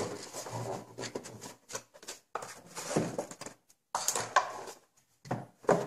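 Handling noise from a cardboard box and a plastic clamshell pack on a wooden workbench: a series of short rustles, scrapes and light knocks with brief pauses between them.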